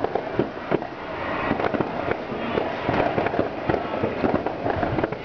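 New Year's Eve fireworks and firecrackers going off all around: a dense, unbroken run of bangs, pops and crackles, many overlapping.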